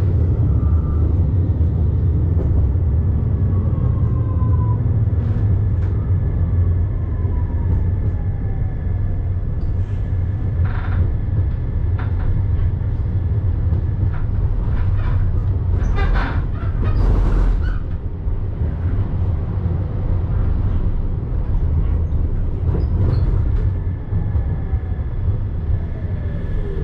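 Electric tram running on its rails: a steady low rumble with a thin motor whine that glides down in pitch twice, the second time near the end as it slows, and scattered short clicks and squeals from the wheels on the track.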